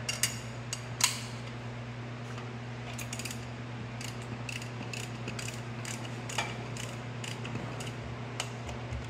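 Hand socket ratchet clicking in short runs as bolts are turned into the main bearing housing on a John Deere 720 two-cylinder diesel block, with a single sharp metal clink about a second in. A steady low hum runs underneath.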